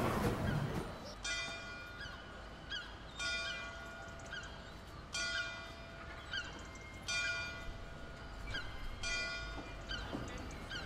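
Bells or bell-like chimes ringing, a strong stroke about every two seconds with lighter notes in between, each note ringing on. A loud, noisy sound dies away in the first second.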